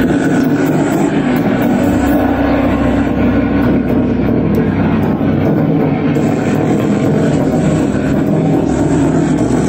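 Live harsh-noise improvisation: a loud, unbroken wall of distorted drone and hiss over a steady low hum, made with electronics and amplified metal objects struck with sticks.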